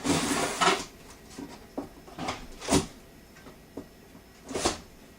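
Cardboard shipping box being worked open with a blunt stick through its packing tape: a rough scraping burst, then separate sharp scrapes and rips, the loudest about two and a half and four and a half seconds in.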